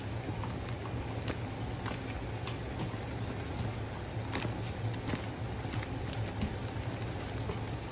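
Chicken curry simmering in its own released juices in a pot, with scattered small pops and crackles over a steady low hum.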